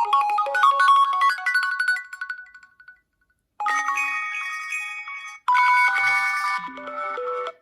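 HTC phone ringtones played one after another. A melody of quick bright notes fades out about three seconds in. After a short silence a second ringtone starts, and it is cut off by a third tune about two seconds later.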